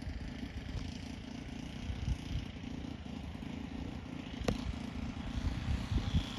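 Wind noise on the microphone, with the faint high whine of a distant electric RC airplane's motor and propeller growing in the second half. One sharp click comes about halfway through.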